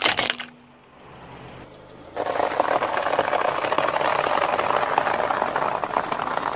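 Car tyre rolling slowly over a spread of small crunchy cereal balls, crushing them in a dense continuous crackling crunch that starts about two seconds in and runs for several seconds. Right at the start, a few sharp plastic cracks as the tyre presses down on game controllers.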